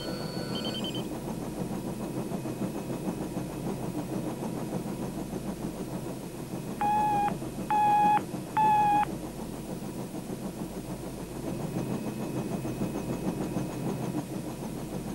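A vehicle engine running steadily as a low rumble. About halfway through come three short, equal beeps, each about half a second long and spaced a second apart, which are the loudest sound.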